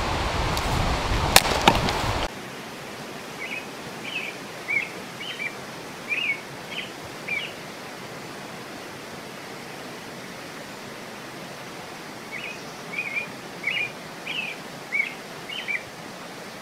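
Loud rushing noise with two sharp knocks, the tail of axe-chopping on wood. After about two seconds it cuts to a steady quieter outdoor hiss, over which a small bird sings two runs of short, high chirps.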